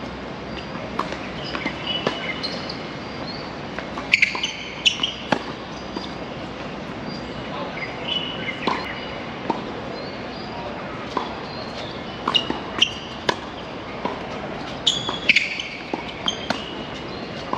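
Tennis being played: a ball struck by rackets and bouncing on the court, sharp pocks that come in quick clusters of a few hits, with short high squeaks between them.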